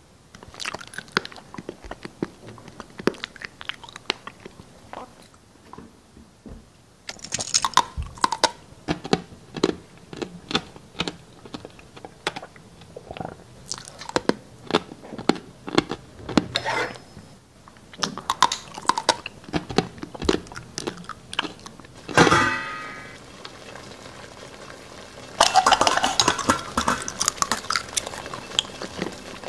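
Close-miked crunchy chewing and biting, many sharp crunches in irregular bursts, dubbed in as the flytrap's eating. About three-quarters through comes a short pitched sound, and near the end a steady hiss with crackles begins.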